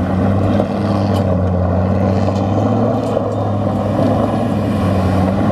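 Truck engine held at steady revs while doing donuts, its tyres spinning and tearing through loose dirt in a continuous rushing noise.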